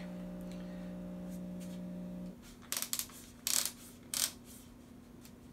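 A steady low hum for the first couple of seconds, then a few sharp hard-plastic clicks and rattles as a new Milwaukee M18 Fuel cordless drill is handled.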